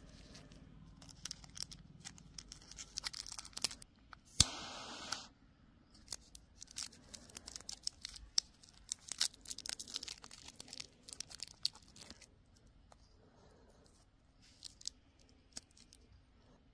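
A plastic gum wrapper crinkling and tearing in many small crackles as it is opened. About four seconds in there is a sharp click, followed by about a second of steady hissing from a jet torch lighter firing.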